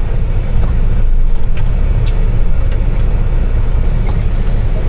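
Kenworth W900 semi truck's diesel engine idling with a steady low rumble, with a single sharp click about two seconds in.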